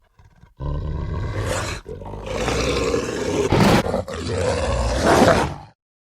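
Werewolf roar sound effect: a rough, growling roar in two stretches, the second longer and loudest towards the end, then cuts off suddenly.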